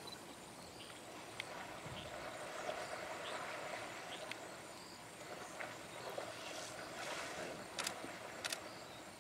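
Water sloshing and splashing as African bull elephants wade and jostle in a dam, with two sharp splashes near the end.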